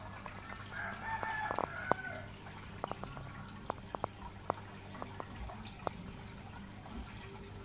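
A rooster crows once, starting about a second in, over the steady low hum of an aquarium pump. Irregular sharp clicks and drips of water from the tank's aeration run throughout.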